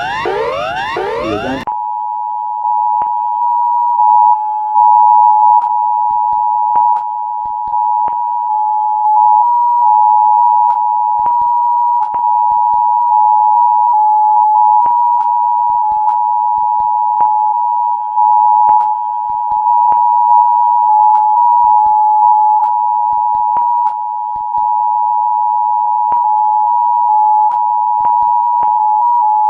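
A quick run of rising electronic pitch sweeps, then the Emergency Alert System attention signal: two steady tones sounded together, held without a break and marked by scattered clicks. It is the tone that comes before a spoken emergency message.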